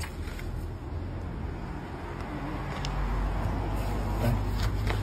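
A steady low rumble like distant traffic, growing louder about halfway through, with a few light clicks and knocks from the camera bag being handled.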